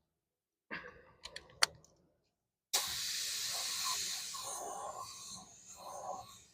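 A few sharp clicks, then about three seconds in a steady spray hiss starts and slowly tapers off, the sound of paint or clear coat being sprayed onto the repaired wheel.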